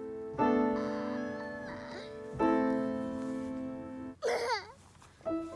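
Background keyboard music: long held chords, struck twice. About four seconds in, a brief high squeal from a small child cuts across it.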